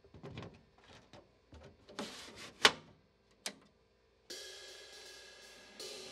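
Clicks and knocks of a DEC VAX 4000 cabinet's plastic front door being unlatched and swung open, with one sharp, loud click about two and a half seconds in. Music starts about four seconds in.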